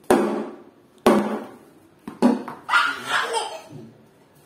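A child's yellow plastic cricket bat and ball knocking on a hard floor: three sharp knocks about a second apart, each with a short room echo. After them comes a brief voice.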